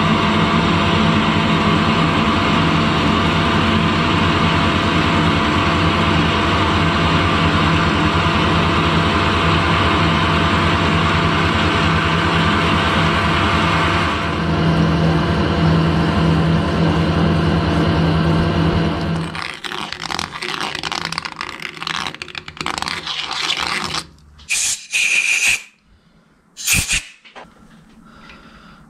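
Harrison metal lathe running under load as a large twist drill bores into a part spinning in the chuck, a steady machine noise. It stops about two-thirds of the way through, and a few short, sharp knocks follow near the end.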